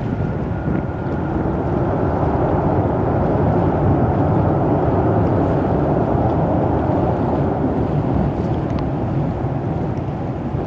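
Jet engines of an Airbus A340-300, four CFM56 turbofans, giving a steady distant rumble as the airliner rolls out after landing. The rumble swells to its loudest about halfway through, then eases off as the plane slows.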